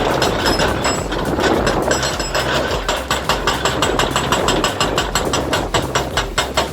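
Heavy crushing machinery running under load, with a dense clatter of sharp knocks that settles into about four a second in the second half.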